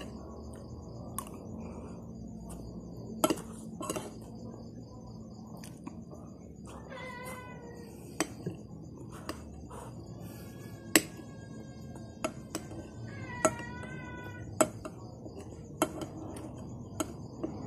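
Metal spoon clicking and scraping against a plate while eating, in sharp, separate clinks. A cat meows three times in the middle, each call wavering in pitch and lasting a second or two.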